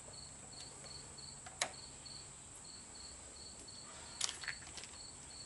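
Light clicks of battery cables and terminals being handled, once about a second and a half in and a few times around four seconds. Underneath is a faint high chirp repeating about four times a second, with pauses.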